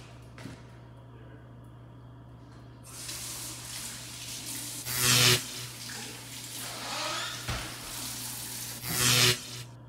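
Restroom sink tap turned on about three seconds in, water running and splashing into the basin with two louder surges, then shut off just before the end.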